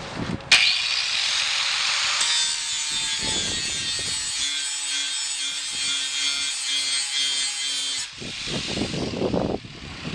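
A grinder grinding on a steel spot weld of a door flange. It starts suddenly about half a second in, runs steadily as a high, hissing grind, and cuts off about 8 seconds in. Lower rustling and knocks follow.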